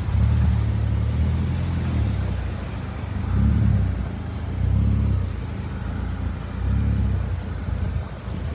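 Car engine and low rumble heard from inside the cabin as the car is manoeuvred, with a long push of throttle at first, then three shorter surges.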